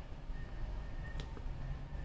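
Paper warranty card and user manual being handled and swapped by hand, with a short click just over a second in, over a steady low rumble.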